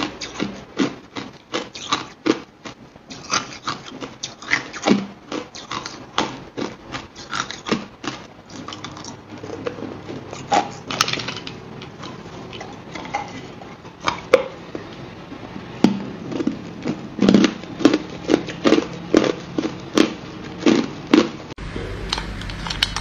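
Hard clear ice cubes crunched between the teeth: a long series of sharp crunches, sparser in the middle and coming about twice a second near the end.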